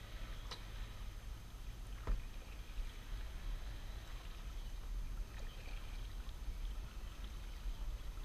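Kayak paddle strokes dipping and pulling through calm water, with light splashes and drips, over a steady low rumble. A sharp knock comes about two seconds in.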